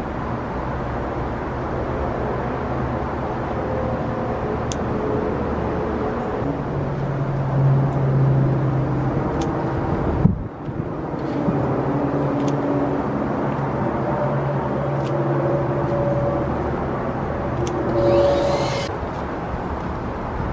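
Steady low engine rumble, like motor traffic, with a few faint clicks.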